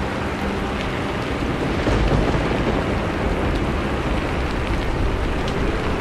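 Steady rain falling, with scattered faint drop ticks and a low rumble of distant thunder swelling about two seconds in.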